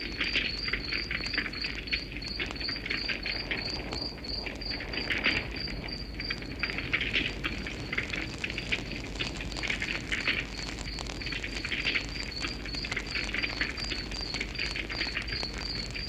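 Wood fire crackling with scattered pops, over a cricket chirping steadily at about three chirps a second.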